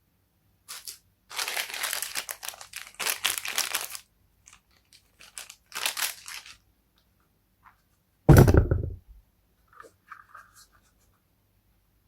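Packaging being torn and crinkled in several noisy stretches during the first six seconds. A single heavy thump follows about eight seconds in and is the loudest sound.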